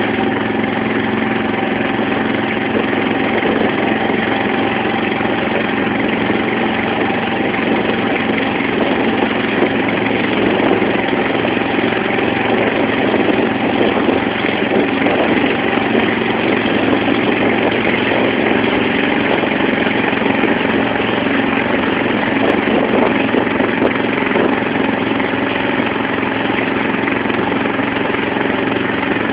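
Engine of a wooden motorboat (banka) running steadily under way, a loud, constant drone that holds the same pitch throughout, with water rushing and splashing along the hull.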